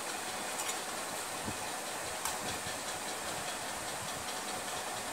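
Steady background hiss with a few faint light taps.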